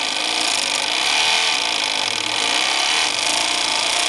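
Small electric craft scroll saw (Hearthsong PlayMat jigsaw) running steadily, its reciprocating blade cutting a thin piece of plywood.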